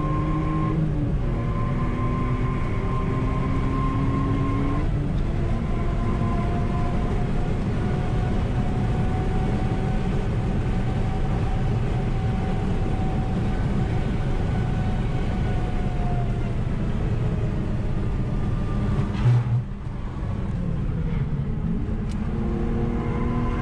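BMW Z3 Coupe's straight-six engine heard from inside the cabin on track, with road and wind noise. It shifts up early on, pulls through one long gear with the pitch climbing steadily, then the revs fall as the car slows, with a brief thump near the end.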